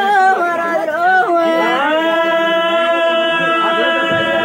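Telugu folk ballad singing: a man's voice sings a quick, moving phrase, then holds one long steady note from about two seconds in.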